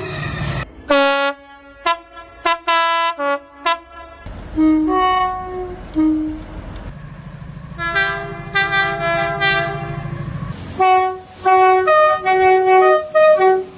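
Train horns sounding in a run of short clips: repeated two-tone blasts, the higher and lower notes alternating, some short and some held for about a second. A train's low rumble runs under the blasts in places.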